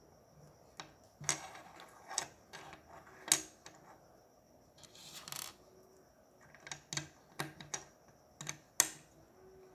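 Plastic Lego pieces clicking and clattering as a hand picks through them and presses small pieces onto a build: scattered sharp clicks, with a brief rustle of pieces shuffled about five seconds in.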